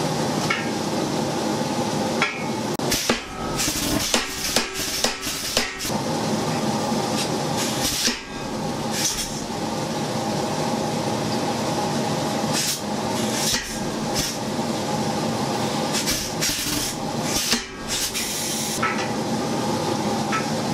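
DIY pneumatic power hammer with a 70 lb solid steel head, striking a red-hot steel bar held in a spring swage tool in a fast, continuous run of blows, some louder than others. It slackens briefly about eight seconds in and again near the end. The blows are roughing the bar into an acorn shape.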